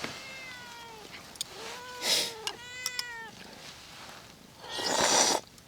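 Domestic cat meowing twice: a short falling meow at the start, then a longer meow about a second and a half in. A loud, short burst of noise comes near the end.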